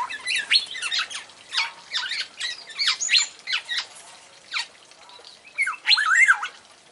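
Black-naped oriole calling in bursts of quick, sweeping, chattering notes. There is a lull a little after the middle and a final burst of wavering notes near the end.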